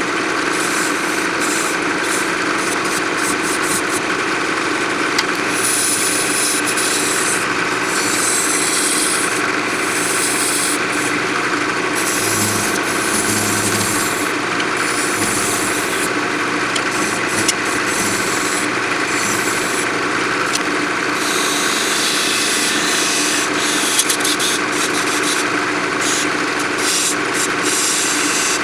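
Wood lathe motor running steadily while a hand-held turning tool cuts a spinning apple-wood lid, shaping its small handle; the scraping of the tool on the wood comes and goes over the steady motor hum.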